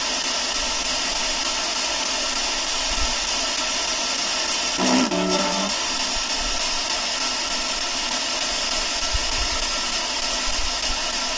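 Steady, loud hiss of even noise, unbroken throughout. About five seconds in, a brief pitched sound with a few overtones lasts under a second.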